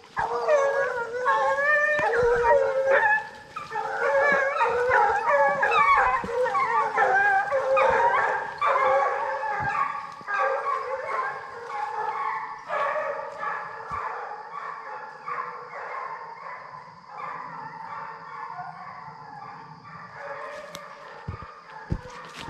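A pack of bear hounds baying and howling together, striking a bear track and opening on it. The cries overlap and are loudest over roughly the first ten seconds, then grow weaker.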